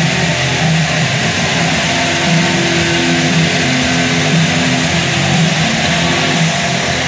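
Marching band brass holding long, sustained chords that shift every second or two, over the loud, steady noise of a packed stadium crowd.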